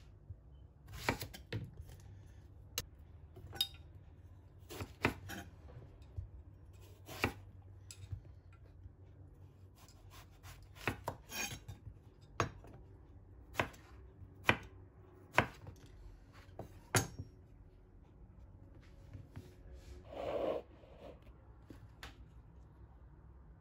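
Chef's knife chopping through eggplant onto an end-grain wooden cutting board: a series of sharp, irregularly spaced chops for about sixteen seconds. A brief burst of noise follows a few seconds later.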